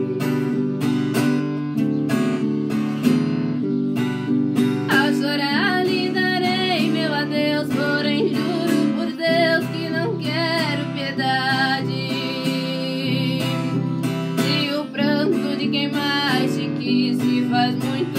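Acoustic guitar strummed in a steady rhythm, with a woman's singing voice coming in about five seconds in and holding wavering notes over the chords until near the end.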